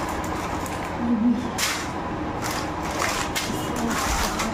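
A plastic carrier bag and plastic spice packets rustling and crinkling as they are rummaged through and lifted out, with several sharp crinkles a second or so apart.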